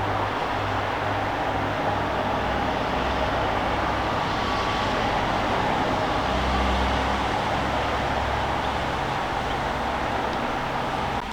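Steady background noise: a constant low rumble with hiss, with no distinct events.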